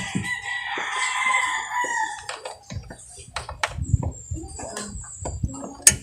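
A rooster crows once, a long call of about two seconds. Then a run of clicks and knocks from the air filter housing being handled, with a sharp click near the end.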